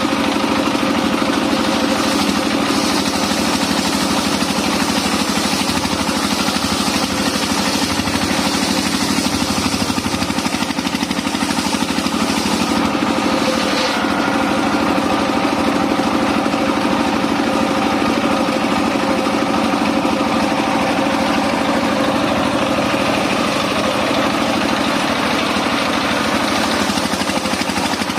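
Engine-driven mobile circular sawmill running steadily at a constant pitch, with the higher hiss shifting for a few seconds in the middle.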